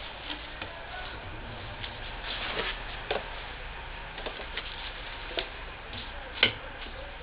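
Irregular light clicks and taps of plastic jars and a bottle being handled and set down, with one sharper click about six and a half seconds in, over a faint steady low hum.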